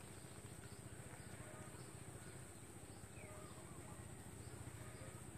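Faint outdoor ambience: a steady high-pitched insect drone, with scattered faint bird chirps over a low rumble.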